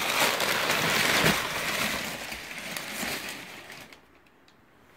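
Brown kraft packing paper crumpling and rustling as it is pulled out of a cardboard box, dying away after about three seconds.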